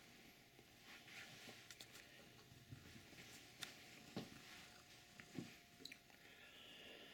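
Near silence: quiet room tone with a few faint scattered clicks and soft knocks.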